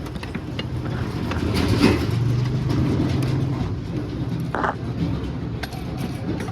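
Honda motorcycle engine running, revving up about a second and a half in and holding there for a couple of seconds, with irregular ticking and rattling over the engine note. The video puts this rattle down to a worn timing chain.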